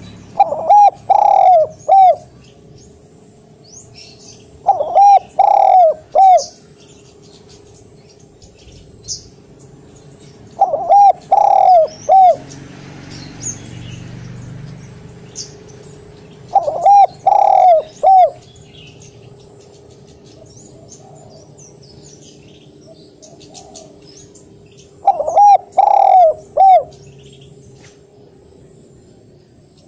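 Spotted dove cooing loudly: five phrases of three or four deep, hooting notes each, repeated every four to eight seconds.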